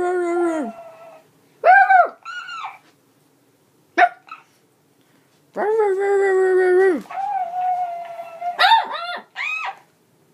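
Shih Tzu puppy vocalizing at its sock monkey toy while playing: long drawn-out howling whines broken by short yelps and barks, with a quick run of barks near the end.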